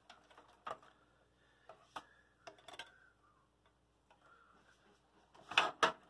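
Scattered sharp clicks and rattles of cables and plastic connectors being handled inside an open computer case, with a louder cluster of clicks near the end.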